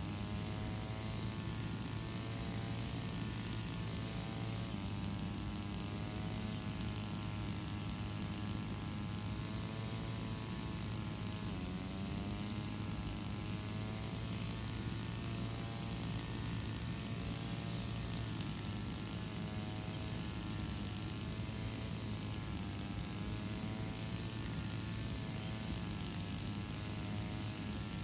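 Engine-powered brush cutter running at high revs while cutting grass, a steady buzzing drone whose pitch sags and recovers several times.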